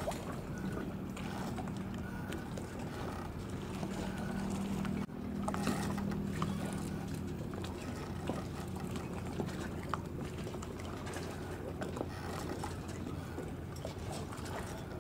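Small waves lapping at the lake's edge, with the steady low hum of a distant engine that fades out after about nine seconds.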